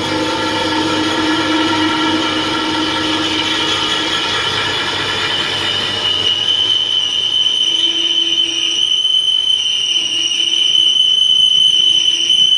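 Metal lathe turning a steel truck wheel rim: the cutting tool squeals against the spinning rim in a steady high-pitched screech, which grows louder about halfway through, over the low hum of the running lathe.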